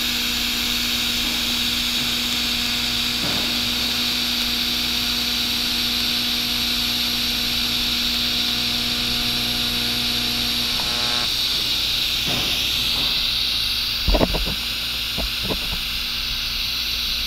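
TIG welding on stainless steel pipe: a steady hiss with a buzzing hum. The hum stops about eleven seconds in while the hiss carries on, and a few knocks come a few seconds later.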